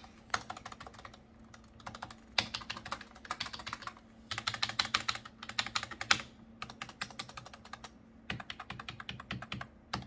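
Keys of a membrane office keyboard pressed in quick runs, the long stabilized keys such as the space bar being tested, with short pauses between runs.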